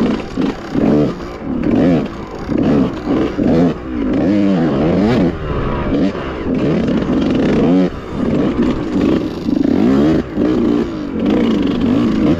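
Yamaha YZ125 two-stroke dirt bike engine with an FMF exhaust, ridden hard: it revs up and down through the gears, its pitch climbing and dropping every second or so, with short throttle-offs between.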